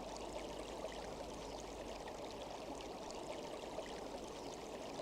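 Steady flowing water of a stream, an ambient sound-effect bed.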